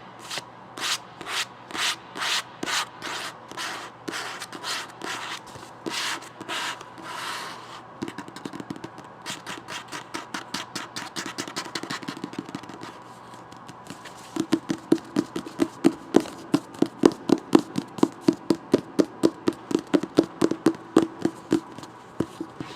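Book being scratched with the fingertips in slow, even strokes, about two a second. Then, from about eight seconds in, light rapid tapping on the book, growing louder at about three to four taps a second over the second half.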